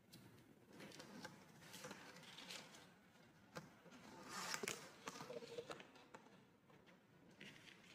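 Near silence with faint handling noise: the plastic hose and fittings of a foot air pump being handled and the vinyl of a deflated gym ball rustling, with a few light clicks and a slightly louder rustle about halfway through.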